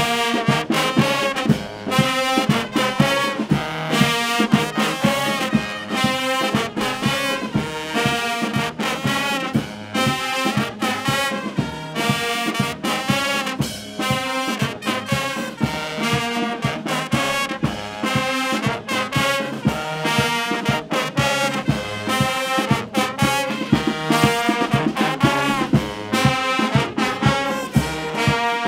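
Brass band playing an instrumental piece, trombones and trumpets carrying the tune over a steady beat.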